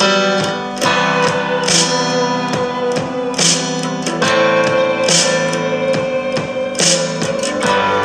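Instrumental background music with plucked, guitar-like string notes.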